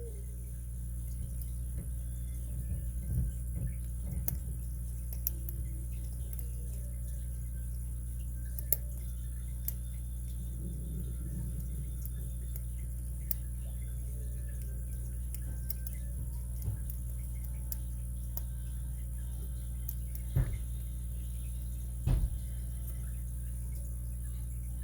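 Faint scattered clicks and light scrapes of a lock pick working the pin stacks of a Master 930/950 padlock's six-pin core under tension, with a couple of louder knocks near the end. A steady low hum runs underneath.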